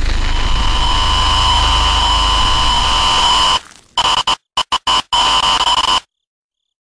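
Loud electronic static-and-hum horror sound effect: harsh noise with steady high whining tones, the distortion that marks the Slender Man catching his victim. It drops out about three and a half seconds in, comes back as choppy stutters, and cuts off suddenly about six seconds in.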